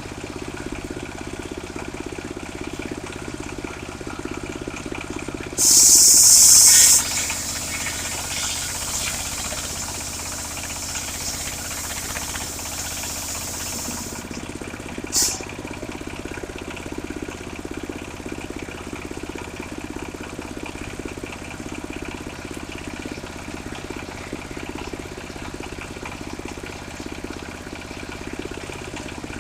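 Engine of a portable circular sawmill running steadily throughout. About six seconds in a loud hissing cutting noise starts abruptly, eases after a second into a quieter steady hiss of the blade in the wood that stops around fourteen seconds, followed by a single short click.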